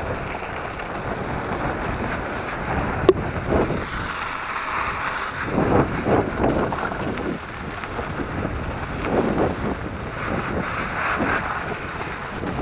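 Wind buffeting the microphone over the rumble and crunch of an electric mountain bike's tyres rolling across sand and gravel, swelling and easing with the rough track, with one sharp click about three seconds in.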